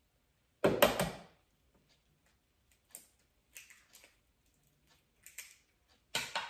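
Eggs being cracked against the rim of a Ninja food processor bowl: a sharp crack cluster about half a second in, a few light taps and clicks in the middle, and another crack near the end.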